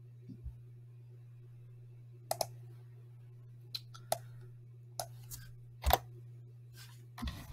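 Computer mouse and keyboard clicks: about eight separate sharp clicks, the loudest about six seconds in, over a steady low hum, with faster typing starting near the end.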